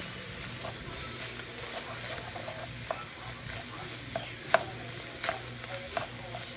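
Ground beef sizzling in a frying pan while a wooden spoon stirs it through. A few sharp clicks sound over the sizzle in the second half, the loudest about four and a half seconds in.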